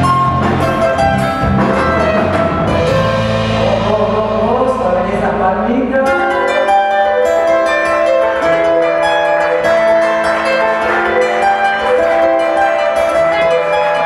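Charango, the small ten-string Andean lute, played live in a fast run of bright plucked notes over band accompaniment. The low accompaniment drops away about six seconds in, leaving the charango more exposed, and comes back partly a few seconds later.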